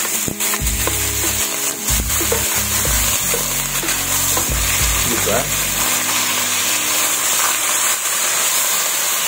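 Thinly sliced beef belly sizzling in hot oil in a nonstick pan as it is stirred with a wooden spatula, with a few sharp clicks of the spatula against the pan in the first two seconds.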